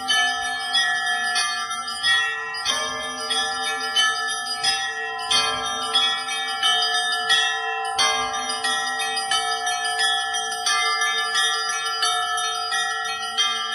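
Festive Orthodox church bell ringing: several bells rung together. Deeper bells hum on under quick, repeated strokes of smaller, higher bells, with a louder stroke about every second or so.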